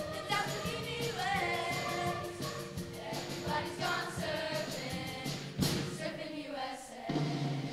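Show choir of young voices singing in unison and harmony over instrumental accompaniment with a steady beat. A little past five seconds a loud crash stands out, and about seven seconds in the singing stops and a low held instrumental chord begins.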